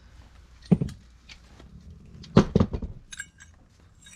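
Metal brake parts being handled: a knock about a second in, a cluster of louder clanks about halfway, then a few light ringing clinks as the rear caliper and worn brake pads are worked loose.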